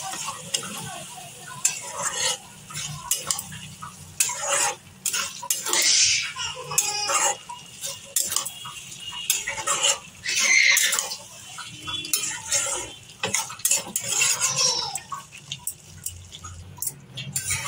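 Metal spatula scraping and knocking against a metal kadai while stirring a wet curry: repeated short clatters, with a few longer scrapes.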